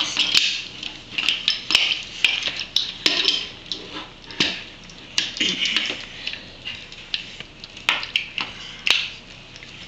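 Hard plastic parts of a transforming Power Ranger motorbike figure clicking and rattling as it is twisted and folded by hand, in irregular quick clicks and scrapes.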